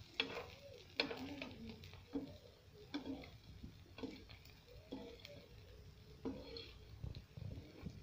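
Steel spoon and spatula tapping and scraping against a nonstick frying pan as hot ghee is spooned over a frying egg: faint scattered clicks about once a second over a light sizzle.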